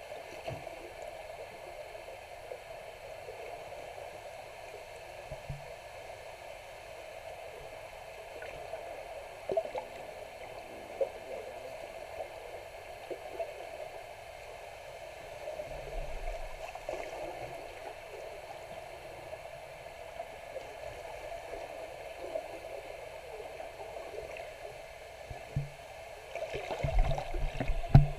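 Water heard from beneath the surface: a steady gurgling wash with scattered small knocks, and a cluster of louder low thumps near the end.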